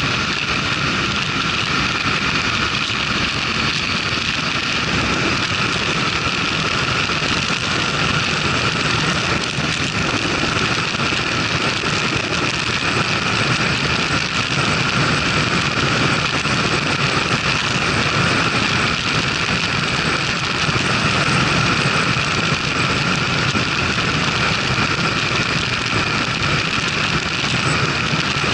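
Motorcycle ridden at highway speed, around 85 to 100 km/h: a steady rush of wind on the camera's microphone over the running engine, without a break.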